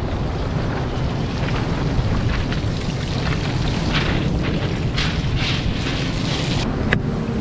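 A whole corvina deep-frying in a pan of oil, sizzling steadily, under heavy wind buffeting on the microphone. Near the end, a knife clicks sharply on a cutting board.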